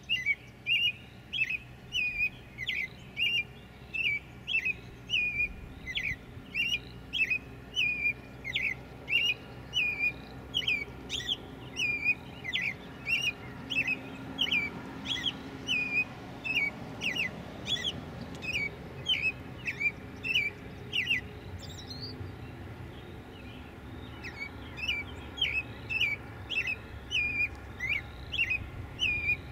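Repeated short, high chirping calls, about two a second, from a small animal. They pause for a few seconds about two-thirds of the way through, then start again.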